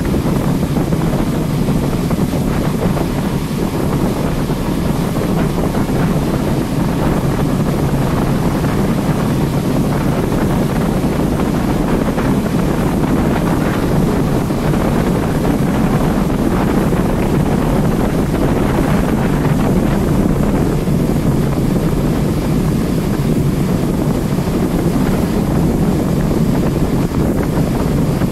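Steady rush of wind buffeting the microphone on a motorboat running underway, with the boat's engine and water noise blended into it.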